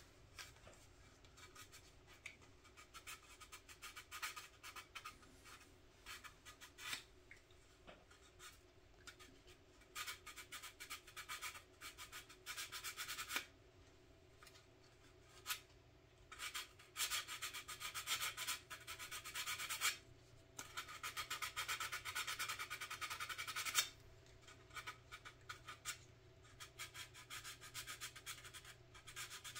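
Small piece of wet 1000-grit sandpaper rubbed rapidly back and forth over filler on a plastic scale-model car body, smoothing a sink mark. Soft, fast rasping strokes come in runs of a few seconds with short pauses between them.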